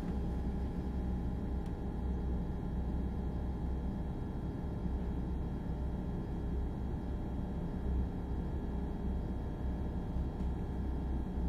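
Inside a Kintetsu 6600 series field-chopper electric train standing at the station: a steady hum of its onboard equipment, with a low rumble and a few constant tones, and no acceleration.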